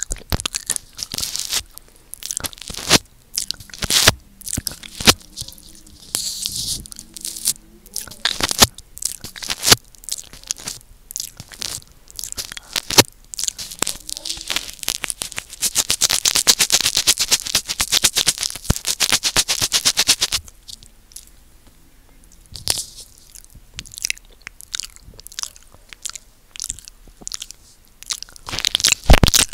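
Close-miked wet mouth sounds of a microphone being licked: quick, irregular runs of lip smacks and tongue clicks, with about five seconds of unbroken wet licking halfway through.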